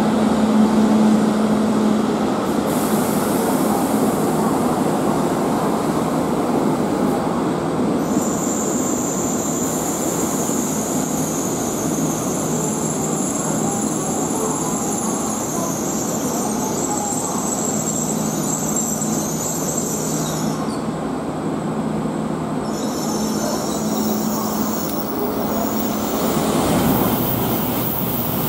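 N700S Shinkansen train running slowly past a station platform: a steady rumble and hiss of wheels and motors, with a thin high whine that comes in about eight seconds in and fades out some twelve seconds later.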